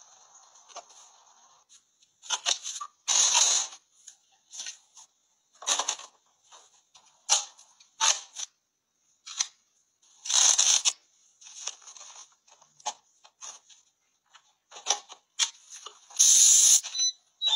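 A series of short clicks and clatters from small plastic household gadgets being handled, about a dozen separate sounds with silent gaps between; the longest and loudest comes near the end.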